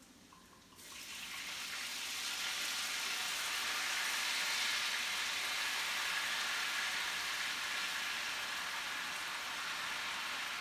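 Marsala wine poured into a hot skillet, setting off a sudden loud sizzle about a second in that holds steady and eases slightly toward the end: the wine deglazing the pan.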